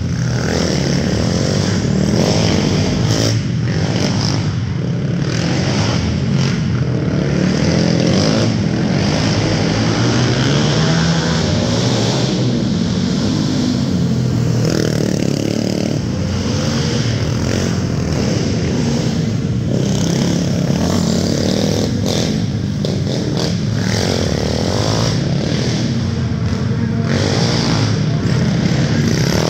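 Several sport quad engines racing on a dirt oval, revving up and easing off over and over, so the engine note keeps rising and falling as they pass.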